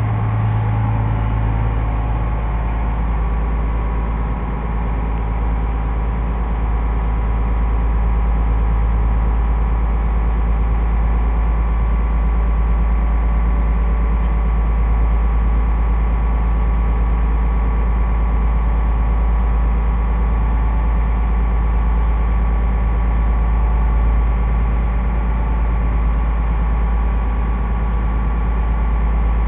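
Small car ferry's engine running under way as a steady, low drone. A somewhat higher engine note fades out in the first couple of seconds.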